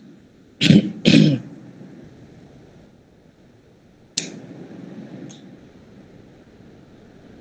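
A man clears his throat with two short coughs, about a second in. Then comes a faint hiss, with a soft rush of breath-like noise about four seconds in.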